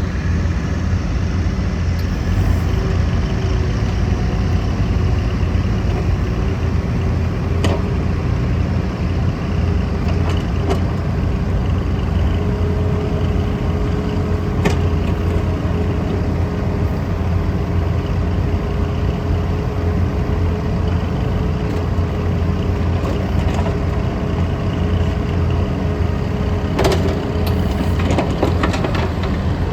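Diesel engine of a Caterpillar 305.5D mini excavator running steadily, a deep hum with a steady tone above it. A few sharp clicks or knocks come through, a cluster of them near the end.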